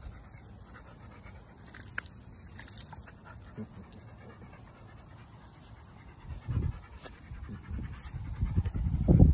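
A dog panting close by, the breaths coming as rough bursts that grow louder over the last few seconds.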